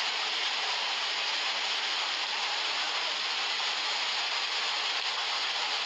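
Steady rushing noise of a muddy lahar floodwater torrent surging through a street, mixed with heavy rain.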